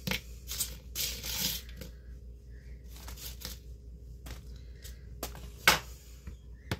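A metal spatula scraping fries off a metal pizza pan: a few short scrapes in the first second and a half, then scattered clinks and knocks of metal on metal, the loudest a sharp clack just before the end.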